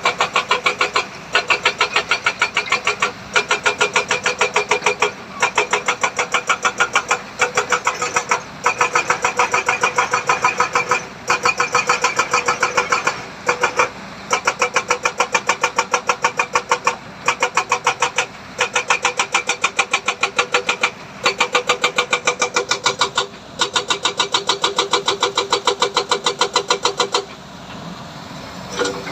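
Machinery running with a rapid, rhythmic clatter, in bursts of a second or two broken by short pauses.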